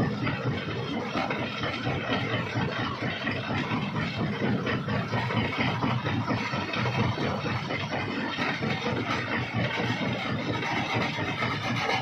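Large belt-driven jaw crusher running under load, with a steady mechanical rumble and rocks clattering and crunching irregularly as they feed in from a dump truck.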